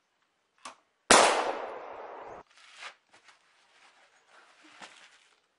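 A single gunshot sound effect: a short click, then a sharp loud bang about a second in whose noisy tail dies away over about a second and cuts off abruptly. Faint scattered knocks follow.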